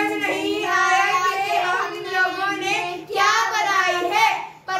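Group of children's voices singing loudly together, with a brief break near the end.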